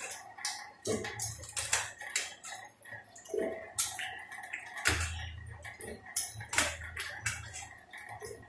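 Chopped vegetable pieces being picked out of a steel plate of water and dropped into an aluminium pot: irregular clicks and knocks with light water splashes.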